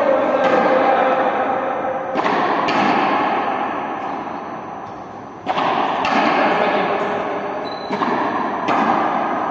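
Balls thudding in an echoing sports hall: about six sharp impacts, each ringing on briefly, over a steady background din.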